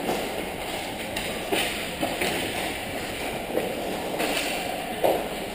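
Ice hockey play close by: skates scraping on the ice and several brief sharp stick-and-puck clacks over a steady, echoing rink noise.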